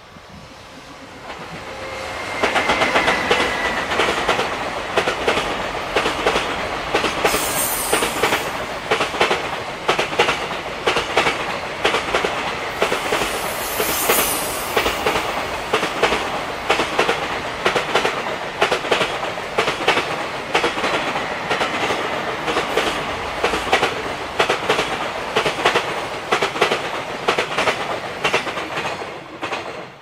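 JR Freight EF210 electric locomotive and its long train of container wagons passing close by: a fast, steady clatter of wheels over rail joints that builds about two seconds in and drops off sharply near the end as the last wagon clears. Two brief high squeals come through in the middle.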